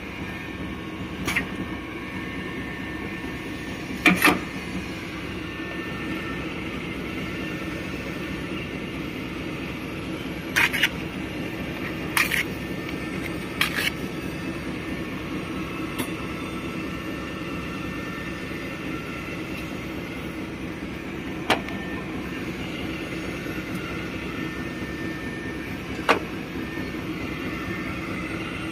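Label slitting machine with a turret rewinder running with a steady mechanical hum. Several short, sharp clacks are scattered through it as the rewind shafts and label rolls are handled.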